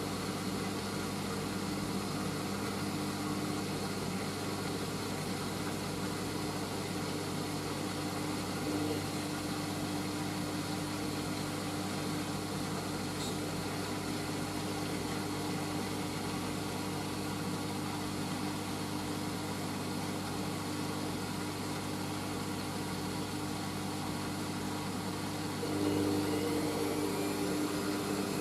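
Hoover Whisper 1600 washing machine's motor running steadily, turning the drum to balance the load before its 400 rpm intermediate spin. About 26 s in it gets louder as the spin begins to speed up.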